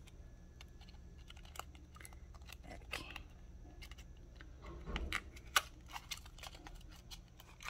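Scattered light clicks and taps of fingernails on small lipstick cases and their packaging as they are handled, with a brief low rustle and bump about five seconds in.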